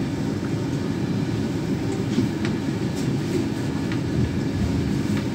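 Steady low rumble of an Irish Rail Mk4 intercity train, with a few faint high ticks and squeaks.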